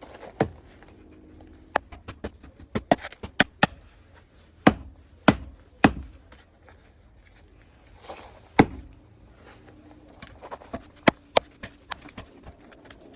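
Hatchet chopping into a hard Russian olive stick, shaping a makeshift axe handle: about twenty sharp, irregular strikes, some in quick runs of two or three, with a brief brushing noise just past the middle.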